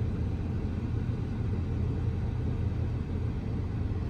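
Steady low rumble of an idling car, heard from inside the cabin.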